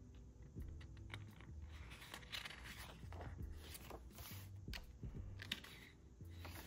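Faint rustling of the paper pages of a photobook as they are turned and smoothed flat by hand.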